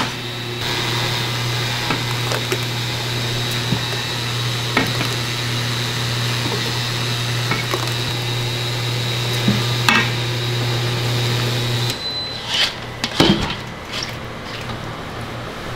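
A steady electric motor hum that cuts off about twelve seconds in, with clinks and knocks of a steel ladle against stainless steel bowls and pans as a thick cream sauce is scooped, several of them together near the end.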